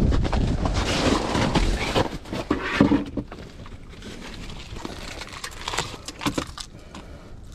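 Wind buffeting the microphone for the first two seconds or so, dropping away as the angler gets into a fabric ice shelter. After that come rustling of the shelter's fabric and winter clothing as he sits down, with scattered clicks and knocks from handling the rod and gear.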